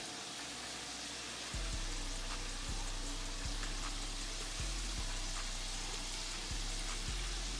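Food frying in hot oil, a steady sizzle. A deep low hum comes in about a second and a half in and is the loudest part from then on.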